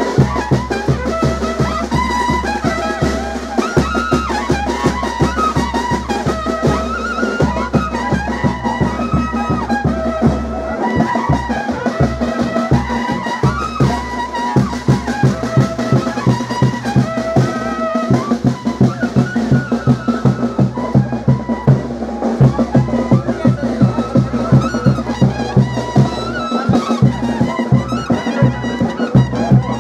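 Band music for a morenada dance: brass melody over a steady drum beat.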